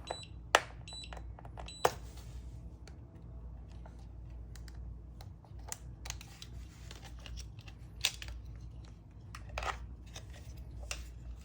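A jump starter's short-circuit error alarm beeping twice, short and high, near the start, with the clamp leads touching each other. Then scattered sharp clicks and small plastic rattles of the unit and its cable being handled.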